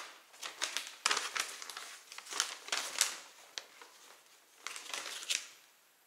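Paper instruction leaflet being unfolded and handled: a run of irregular crinkling rustles that stops about half a second before the end.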